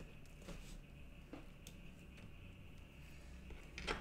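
Quiet room tone with a low steady hum, broken by a few faint short taps; the last, near the end, is the loudest.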